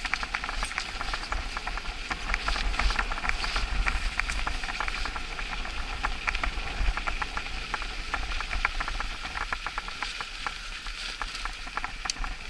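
Mountain bike rolling over packed snow: a dense, irregular crackle of tyres crunching the snow over a steady low rumble.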